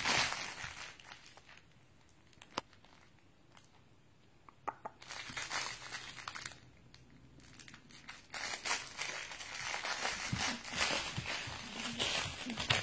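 Crinkle toy crackling and rustling as a puppy bites and shakes it. It is loud at first, then mostly quiet for several seconds with a few small clicks and a brief rustle, and crinkles steadily again from about two-thirds of the way through.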